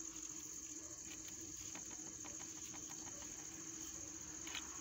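Crickets chirring steadily and continuously, with a faint low hum and a few light clicks.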